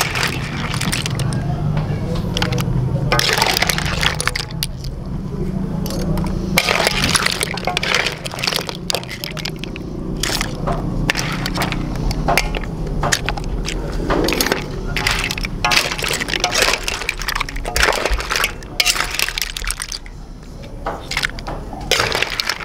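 Cooked clam and mussel shells clinking and clattering as the seafood is tipped out of the wok and spread onto banana leaves, a run of sharp clicks and rattles.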